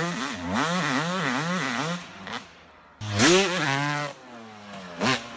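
Yamaha YZ250 two-stroke motocross bike, its engine revving up and down about twice a second as the throttle is worked. It eases off, then after an abrupt cut it revs up sharply and falls away, with a short sharp burst near the end.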